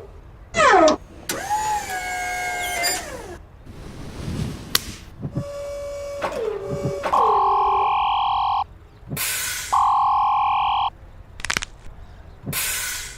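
A string of short sound effects: a quick falling whistle, a wavering pitched tone, sharp hissy bursts, and a steady two-note beep played twice, each about a second and a half long.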